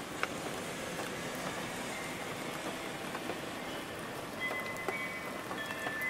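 Steady rain falling on a surface, a constant patter with scattered drop ticks. Near the end, a wind chime begins to ring faintly.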